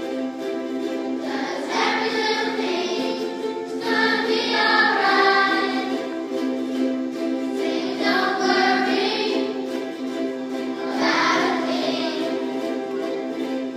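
A choir singing, its phrases swelling and fading every few seconds over steady held lower notes.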